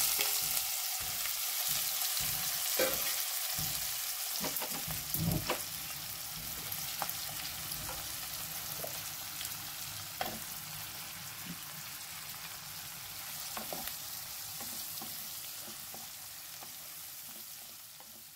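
Sliced onions and garlic sizzling in hot oil in a non-stick kadai, stirred with a wooden spatula that now and then knocks and scrapes the pan. The sizzle is strongest at first and slowly dies down toward the end.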